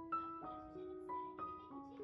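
Soft instrumental background music: a slow melody of single notes, each struck and left to ring.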